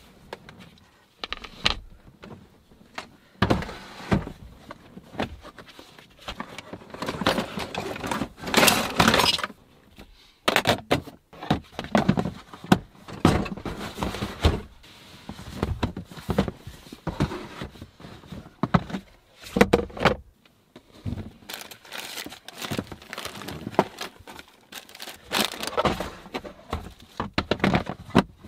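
Irregular knocks, clunks, clicks and rustling as gear is handled, moved and fitted into place by hand, with a few loud clanks.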